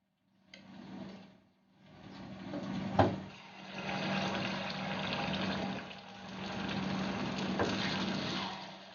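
Dosa batter hitting hot coconut oil in a kuzhi paniyaram pan, sizzling in several swells that rise and fade. A single knock sounds about three seconds in, over a steady low hum.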